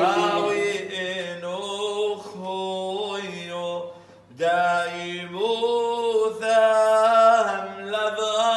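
Male voice chanting a Syriac liturgical prayer in a long, ornamented melody over a steady low held tone, with a short breath pause about four seconds in.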